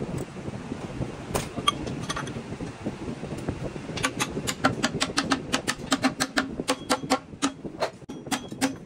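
Rapid, even hammer taps on the steel input shaft of a manual gearbox, about four or five a second with a short metallic ring on each, starting about halfway through and tapping the shaft and its bearing into the gearbox case. A few scattered metal clinks come before it.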